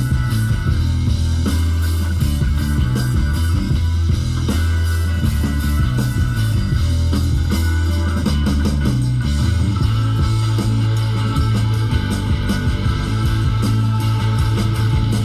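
Guitar-driven rock music with heavy, sustained bass, played through a car sound system with two 6.5-inch subwoofers in the trunk. The bass holds on one steady low note from about ten seconds in.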